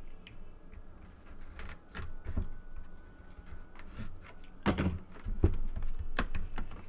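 Cardboard trading-card box being handled on a tabletop: scattered taps, knocks and scrapes as it is lifted, turned and set down. The sounds are busier and louder in the second half.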